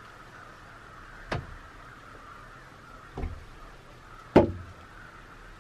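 Three sharp knocks, the last the loudest, over a faint steady background hiss.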